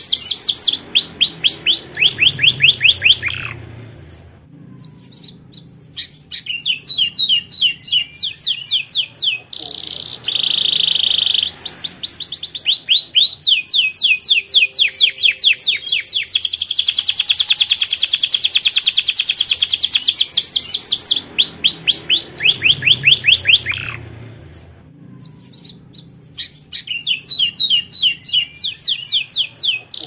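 Yellow domestic canary singing in long phrases of fast rolling trills and rapidly repeated high notes, with a short held steady note about ten seconds in. The song pauses briefly twice, about four seconds in and again near the end.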